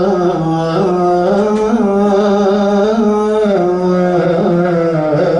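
Men chanting a devotional Islamic recitation (durood or naat) in a slow, drawn-out melody. A steady low note is held beneath a tune that shifts in pitch.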